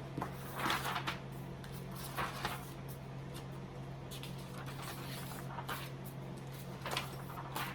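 Paper rustling as the pages of a large paperback activity book are handled and turned, a few short rustles over a steady low hum.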